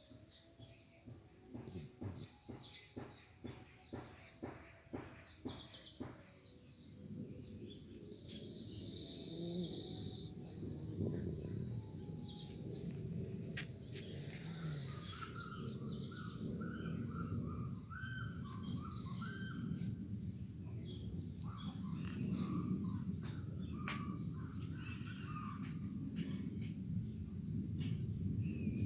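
Steady high insect chirring, with a run of quick clicks in the first few seconds and a continuous low rumbling noise coming in about a quarter of the way through.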